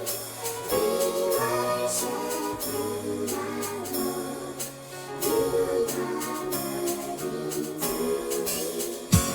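Live gospel worship music: a choir singing held chords over a band with a moving bass line, with one sharp low thump near the end.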